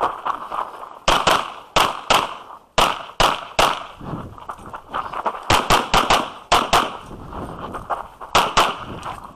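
Pistol shots fired fast in a practical-shooting stage, mostly in quick pairs a fraction of a second apart, with short pauses between groups of shots as the shooter moves between targets.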